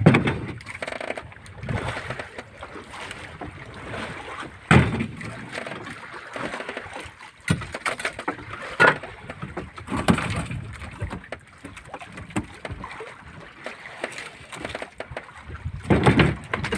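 Irregular knocks and scrapes of things being handled at the wooden fish-hold hatch of a small fishing boat, the loudest near the end.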